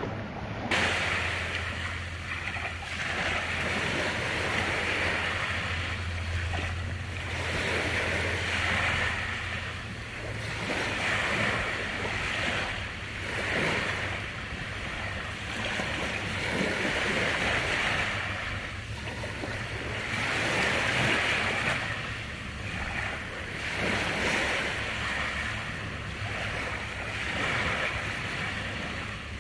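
Sea waves washing onto a beach, the surf swelling and ebbing every few seconds, with a low steady rumble for about the first ten seconds.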